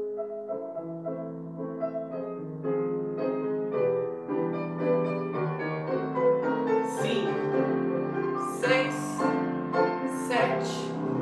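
Slow piano music for ballet class, with held chords and melody notes changing about once a second. A few short hisses sound over it in the second half.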